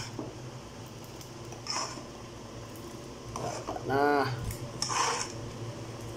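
Metal spoon stirring mung beans in an aluminium pot: a few clinks and scrapes against the pot, the loudest about four seconds in.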